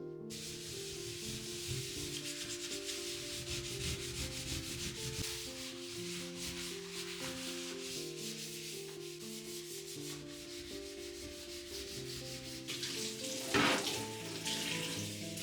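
Rapid back-and-forth rubbing strokes, as of scrubbing or sanding a hard surface by hand, with one louder stroke near the end, over soft background music.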